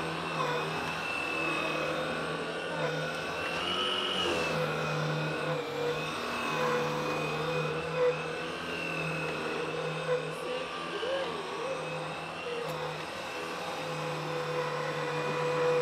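Vacuum cleaner running steadily as it is worked over a dirty carpet: a motor hum with a high whine, whose pitch lifts briefly about four seconds in.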